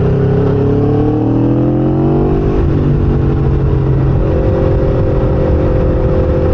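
Sport motorcycle engine under way: the revs climb, drop off suddenly about two and a half seconds in, then hold steady. A low wind rumble runs underneath.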